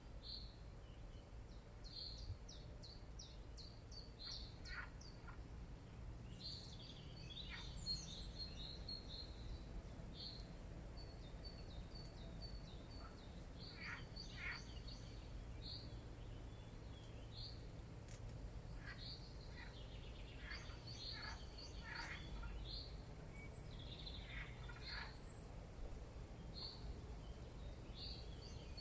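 Small birds chirping: many short high chirps in quick runs, with a few lower falling calls now and then, over a steady low background rumble.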